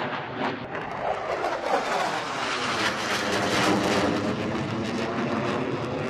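A formation of F-15 Eagle fighter jets passing low overhead: jet engine noise that builds to its loudest about three to four seconds in and stays loud, with a sweeping, phasing rush as the aircraft go by.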